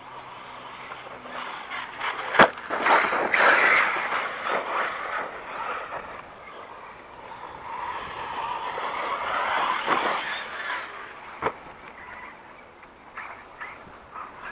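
Arrma Outcast 6S RC truck's brushless electric motor whining in two spells of throttle, the pitch rising and falling, with tyres churning through sand. A sharp knock about two seconds in is the loudest sound, and another comes about eleven seconds in.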